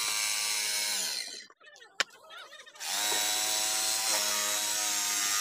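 DCK electric jigsaw cutting a curved shape in a wooden board: the motor whine runs, winds down about a second in, and a single sharp click follows. Near three seconds the jigsaw starts again and cuts steadily on.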